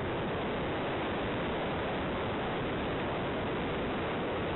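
Steady rushing wind noise over the microphone of an RC plane's onboard camera in flight, with no motor whine heard.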